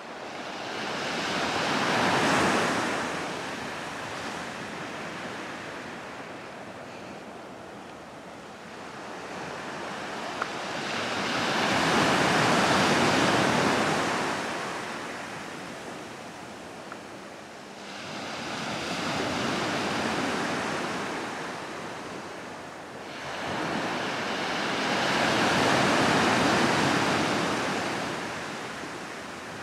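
Ocean surf breaking and washing onto a rocky shore: four slow surges of wave noise, each building and fading over several seconds.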